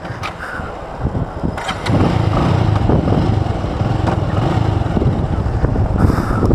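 Motorcycle on the move: engine running under a low, uneven rumble of riding noise on the helmet-mounted camera. It gets louder about two seconds in.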